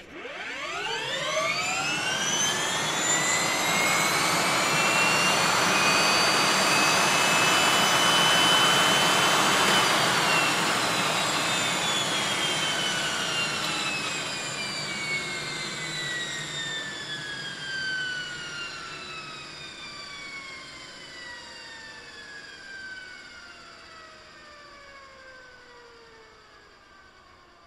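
HH-65 Dolphin helicopter's twin turboshaft engines heard from the rear, starting up with a rising whine. They run steadily, then shut down about ten seconds in, the whine gliding slowly down in pitch and fading away.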